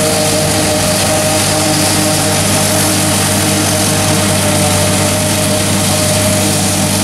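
John Deere 4055 six-cylinder diesel tractor running steadily under load, with the New Holland FP230 forage harvester's cutterhead and blower spinning as it chops corn for silage: a constant engine hum over a steady rushing hiss.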